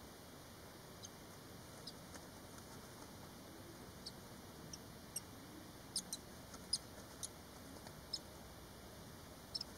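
Five-day-old barn swallow nestlings giving short, high squeaks: scattered single peeps, with a quick cluster of louder ones midway and a pair near the end.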